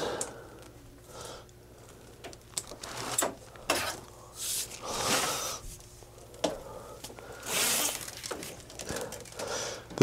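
Insulated electrical wires being pulled out of flexible conduit and handled: irregular rustling, scraping swishes, several of them, the loudest near the middle and near the end.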